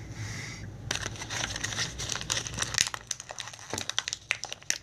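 Plastic toy packaging crinkling and crackling as it is handled and opened. The dense run of crackles starts about a second in.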